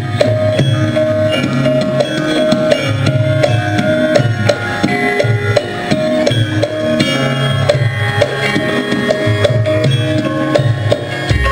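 Javanese gamelan music: bronze metallophones strike ringing pitched notes over a steady pattern of drum beats.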